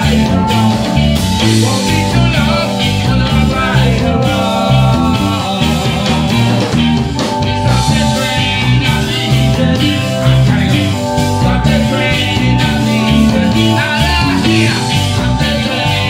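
Live reggae band playing: electric guitars, keyboard, bass and drums, with a singing voice over them.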